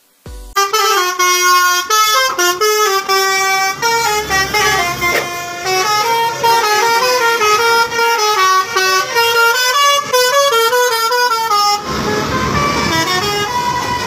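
A bus's multi-tone 'telolet' air horn playing a quick melody of stepping notes for about eleven seconds. Near the end the tune stops and a noisier, rougher rush takes over.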